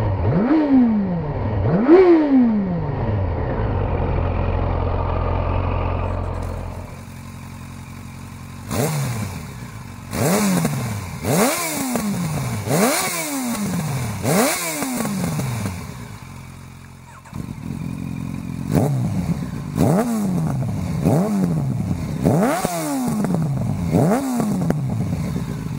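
Yamaha FZ8's inline-four engine blipped repeatedly while stationary through its quiet stock exhaust: a dozen or so quick throttle blips, each a short rise in revs that falls back to idle, with a short lull in the middle.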